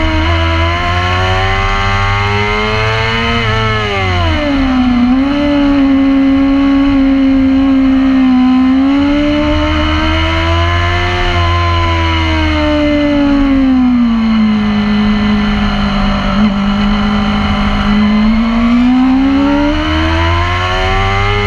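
Racing sport motorcycle's engine at high revs, heard from on board. The revs drop about four seconds in and again from about thirteen to sixteen seconds, and rise again after each dip as the bike works through the corners.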